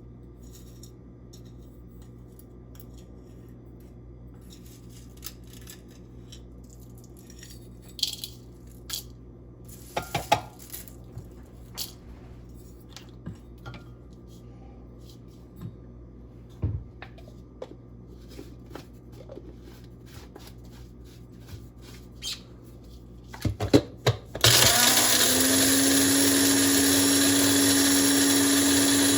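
Scattered light clicks and taps. Then, near the end, a small electric kitchen motor such as a blender switches on and runs steadily with a constant whirring hum.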